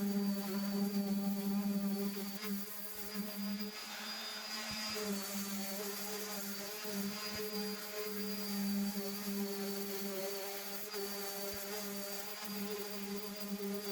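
Electric sander running steadily, sanding Bondo body filler on a foam-covered dashboard with 60-grit paper; a continuous buzz that wavers slightly as pressure on the work changes.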